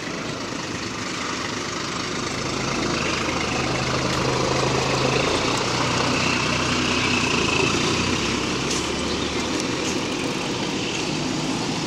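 Large diesel bus engine running, growing louder about four seconds in and easing off again after about eight seconds.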